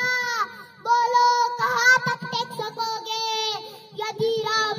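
A young girl reciting a poem in a loud, high, sung chant, holding long notes between phrases, through a handheld microphone.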